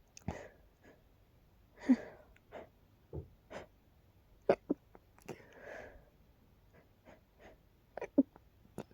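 A person in a sneezing fit: a string of short, sharp sneezes, about ten in all, the loudest about two, four and a half and eight seconds in, with a longer breathy gasp in the middle.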